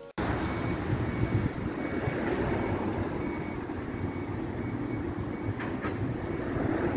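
Steady low rumble of road traffic and vehicle engines. A faint thin high tone rises over it about a second in and fades a couple of seconds later.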